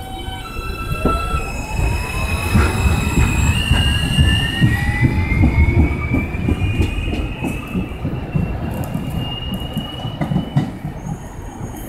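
R160 subway train accelerating away: its traction motors give a howl of several tones that rise steadily in pitch as it gathers speed, over the low rumble and clatter of the wheels on the rails.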